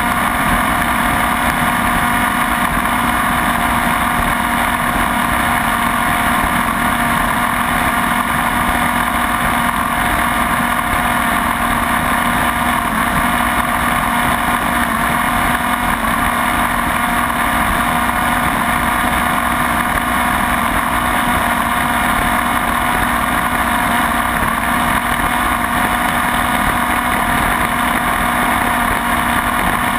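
Small Cox glow-fuel two-stroke model engine on a Shrike tether car, running flat out at a steady pitch as the car laps on its tether, heard close up from the onboard camera.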